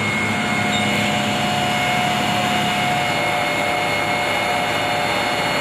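Fire engine's motor running steadily: a constant hum with a few steady whining tones over it.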